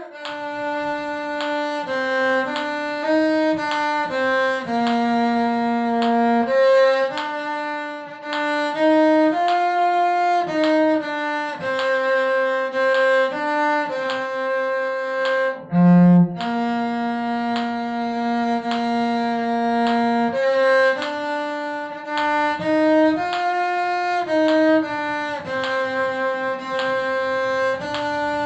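Solo violin bowed through a melody of held and shorter notes in a steady pulse, with a brief break and a low thump about halfway through.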